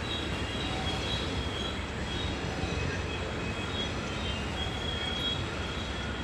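Coal cars of a long freight train rolling past on a tight curve: a steady wheel-on-rail rumble with thin, high wheel squeals that come and go.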